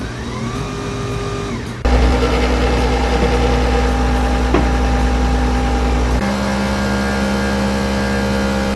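Nespresso Vertuo Plus coffee machine brewing an espresso. Its motor starts with a loud steady hum about two seconds in as it spins the capsule and pumps, then shifts to a lower, steady pitch about six seconds in.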